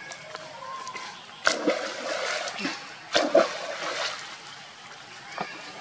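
Water splashing as a small macaque swims and thrashes through a muddy pool, with two loud splashes, about one and a half and three seconds in.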